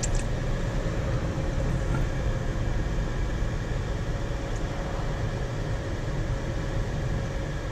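Steady engine and road noise inside the cabin of a moving car.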